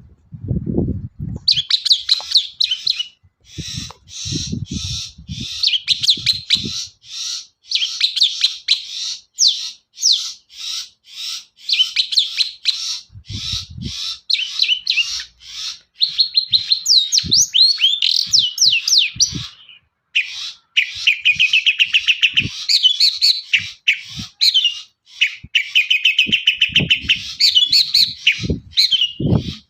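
Long-tailed shrike (cendet) singing a fast, almost unbroken run of short high notes and quick rising and falling whistles, with a brief pause about two-thirds of the way through. A few low thuds sound underneath, near the start, at about four to six seconds and near the end.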